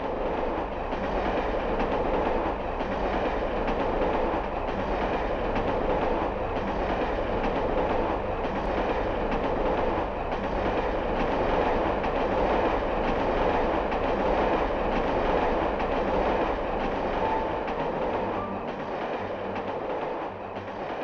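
Railway train rolling along the track: a steady rumble with a rhythmic clatter of wagon wheels on the rail joints. A few faint musical notes come in near the end.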